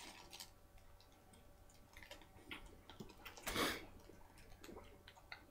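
Faint clicks and smacks of a person chewing a mouthful of McChicken sandwich, with one short, louder rush of noise about three and a half seconds in.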